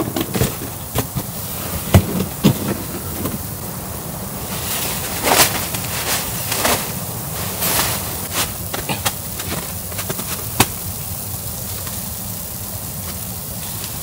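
Camping gear being handled inside a nylon dome tent: a few sharp knocks, mostly in the first few seconds, and several bursts of rustling in the middle as fabric and a rolled sleeping mat are moved about, over a steady low background noise.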